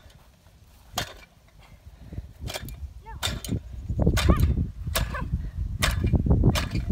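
Wind buffeting the microphone, building up about two seconds in, with sharp clicks several times as a stick strikes balls on the grass.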